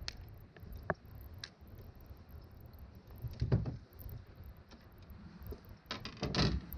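A few sharp clicks, then dull thumps about three and a half seconds in and again near the end, over a steady low rumble.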